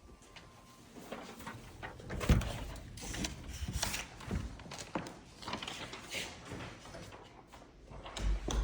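A door being opened and handled, with a sharp knock about two seconds in, followed by scattered clicks and knocks.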